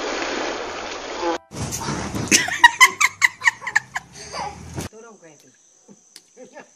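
Water rushing and splashing down a wet inflatable water slide, then a child laughing in a quick string of short, loud bursts, followed by faint children's voices.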